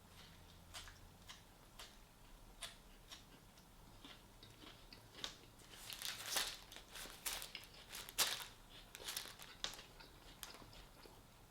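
A person chewing and crunching food close to the microphone: irregular wet clicks and crunches that grow thicker and louder past the middle, the loudest crunch about eight seconds in.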